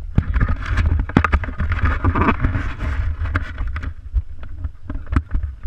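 Handling noise from a GoPro action camera being turned and adjusted on its mount: many sharp clicks and knocks with a rubbing, scraping noise about one to three seconds in. Low wind rumble on the microphone underneath.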